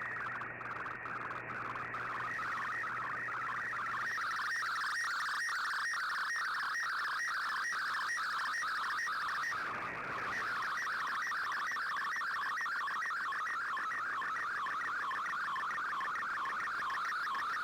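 Shortwave receiver playing the Shortwave Radiogram's digital-mode signal: a fast, warbling band of data tones over hiss, with a brief break about ten seconds in.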